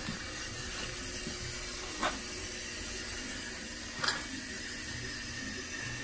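Steady hiss of water running into a newly installed steam boiler as its automatic water feeder fills it, with two short knocks about two and four seconds in.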